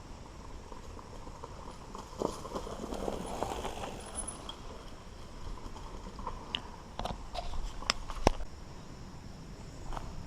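Mountain bike riding a dirt trail: tyres crunching over the ground, with the bike rattling and giving sharp clicks and knocks over rough spots, the loudest knock about eight seconds in.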